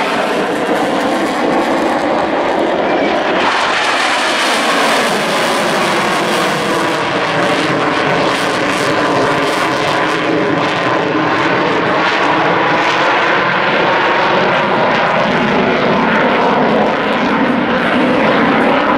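US Navy EA-18G Growler's twin General Electric F414 turbofans running loud and continuous during a low, high-g display pass, the jet's tone sliding up and down as it manoeuvres.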